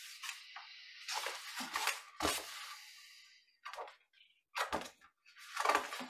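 Paper rustling and pages turning as a large picture book is handled, with several soft knocks as the book is moved about.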